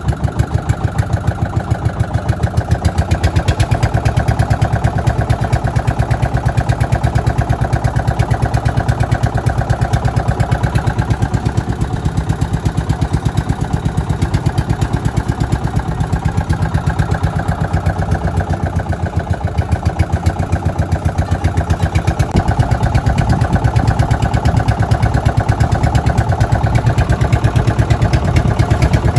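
Small boat engine on a sampan running steadily, a fast even chugging that holds throughout.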